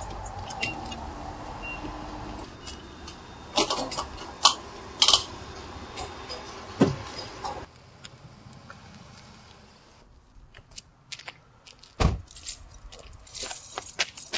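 A gas pump hums steadily as fuel is pumped, then a series of sharp clicks and knocks from the fuel nozzle and filler follows. Later there is one heavy thump, then a set of keys jangling near the end.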